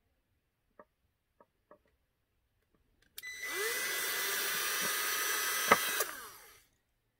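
Ryobi cordless drill spinning up with a rising whine about three seconds in and drilling into wood, running steadily for about two and a half seconds. It then winds down with a falling pitch. A sharp click comes just before it stops, and a few light handling clicks come before it starts.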